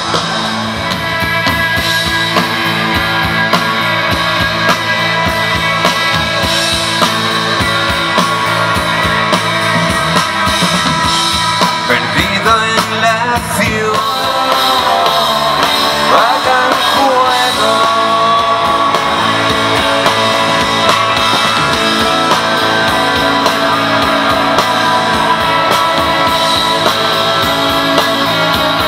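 A rock band playing loud music through a PA system: electric guitars, with singing.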